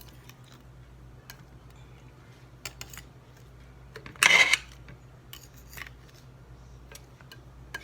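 Light clicks and taps of a knife against a plate as orange slices are arranged, with one louder, short clatter a little after four seconds in, over a low steady hum.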